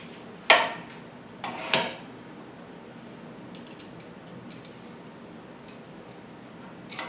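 Small metal parts and tools clinking as they are handled on a workbench during assembly: two sharp clinks about half a second and a second and a half in, then a few faint ticks.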